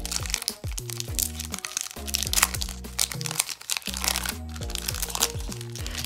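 Wrapper of a 1991 Bowman baseball card pack crinkling and crackling in the hands as it is opened, with background music playing steadily under it.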